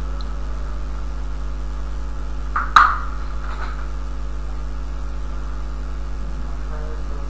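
Steady electrical mains hum with hiss picked up by the recording microphone. A short sharp click comes close to three seconds in.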